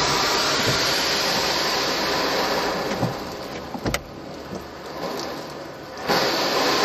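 Automatic car wash heard from inside the car: a loud, steady rush of the wash equipment working on the car, dropping away about three seconds in, with a few knocks, the sharpest about four seconds in, then starting again abruptly about six seconds in.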